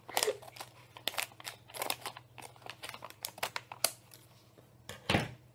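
Scissors cutting open a plastic Smarties sharing bag, the wrapper crinkling and snipping in quick, irregular crackles, with one duller thump about five seconds in.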